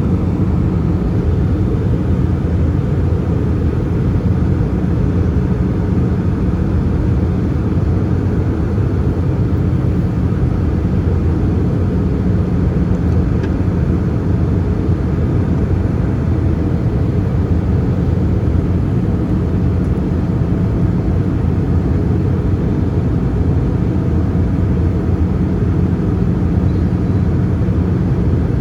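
Cabin noise inside an Airbus A320-214 in flight: a steady low drone of airflow and its CFM56 engines, with no change in level.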